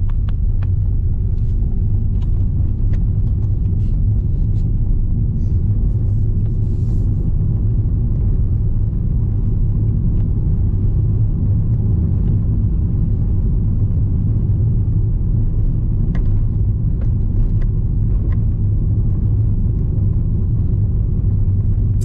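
Steady low rumble of a car's engine and tyres heard from inside the cabin while driving, with a few faint ticks scattered through it.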